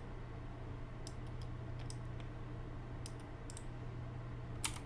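A few scattered clicks of computer keyboard keys and mouse buttons, the loudest near the end, over a low steady hum.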